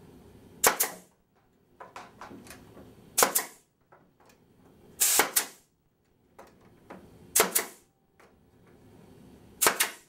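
Nail gun firing five times, driving nails through a wooden window stop into the side frame; each shot is a sharp double crack, about two to two and a half seconds apart.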